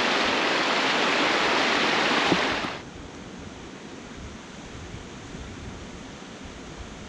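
Shallow river water rushing over low rock ledges in small cascades, a loud steady rush that drops suddenly to a softer, steadier river rush about three seconds in.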